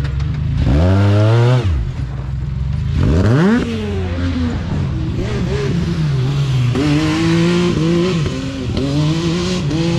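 Side-by-side UTV engine revving hard, its pitch sweeping up sharply about a second in and again about three seconds in, then rising and falling with the throttle.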